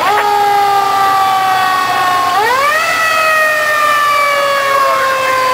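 Fire engine's siren sounding in a long wail: its pitch rises at the start and slides slowly down, then winds back up about two and a half seconds in and slides slowly down again.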